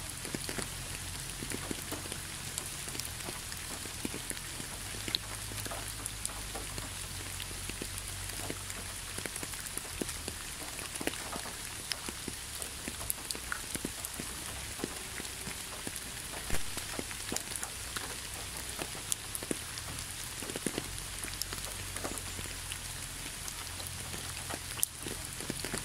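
Light rain falling steadily: an even hiss speckled with many separate drop ticks, one of them louder about sixteen seconds in.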